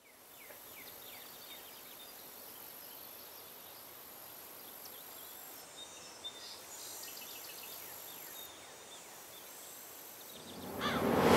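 Faint countryside ambience: small birds chirping in short falling calls over a steady high insect buzz, fading in at the start. Music swells in near the end.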